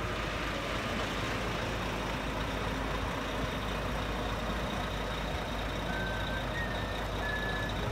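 Motor coach bus running as it pulls slowly away, a steady low engine rumble under even outdoor noise. A few brief high tones come near the end.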